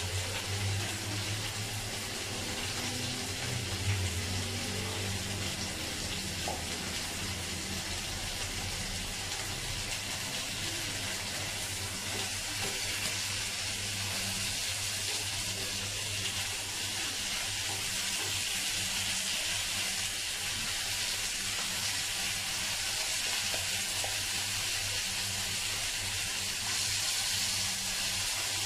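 Marinated lamb frying in a nonstick pan over a gas flame: a steady sizzling hiss, with a low hum underneath.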